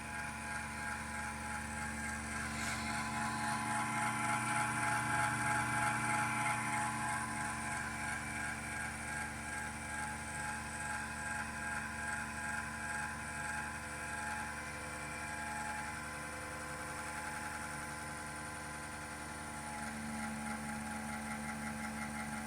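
A steady machine hum made of several steady tones with a slow waver in loudness.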